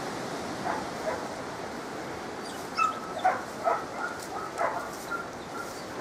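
Dogs in kennels barking and yipping: a handful of short scattered barks and yips over a steady outdoor background hiss.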